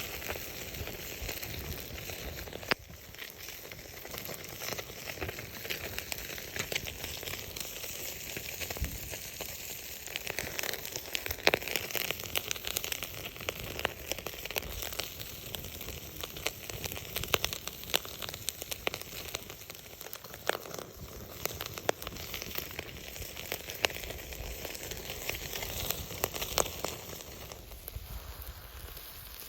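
Pacific saury grilling over a wood campfire: a steady sizzle with frequent sharp pops and crackles from the fire.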